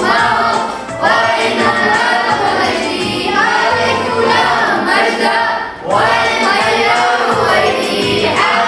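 Sung, melodic recitation of a classical Arabic poem in the Tawil meter: long sustained vocal phrases with a choir-like layered vocal sound, pausing briefly about one second in and again about six seconds in.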